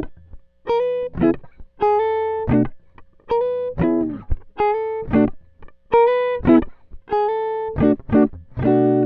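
Plucked guitar music: a short repeating phrase of picked notes, a held note about every second followed by a quick run of short notes.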